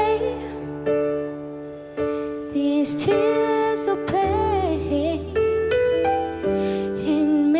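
Slow pop ballad played live by a band: held keyboard chords over a bass line, with a woman singing drawn-out phrases that come in about two and a half seconds in and again near the end.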